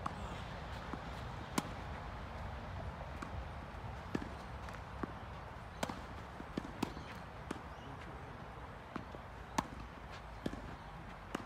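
Tennis ball being struck and bouncing: a series of short, sharp knocks at irregular intervals, the loudest about a second and a half in and again near the end, with fainter ones in between over a steady low background rumble.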